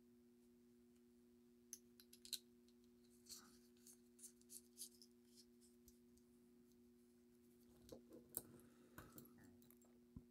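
Near silence: faint, scattered clicks and handling noise of small objects moved on a table, a little louder near the end, over a steady low hum.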